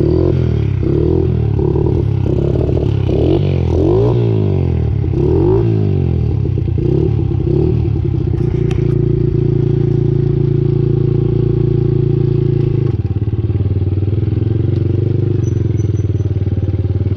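Honda XR70's single-cylinder four-stroke engine, newly fitted with an 88cc big bore kit, running on choke on its first start since the rebuild. It is blipped with the throttle about once a second for the first several seconds, then runs steadily as the bike rides off, settling slightly lower near the end.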